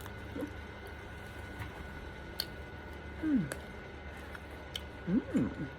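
A person eating crispy, overcooked vegan lasagna: soft mouth and chewing sounds with a few sharp clicks. Two short hummed 'mm' sounds come, one about three seconds in and one near the end.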